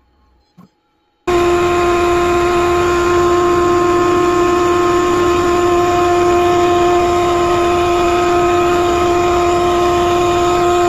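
Near silence for about the first second, then the loud sound of a CNC router spindle cuts in abruptly. It runs with a steady high whine over a rushing noise as a 1/4 inch ball nose bit carves a pocket in ash.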